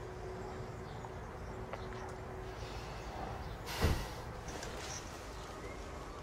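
Steady low background rumble with a single dull thump a little under four seconds in.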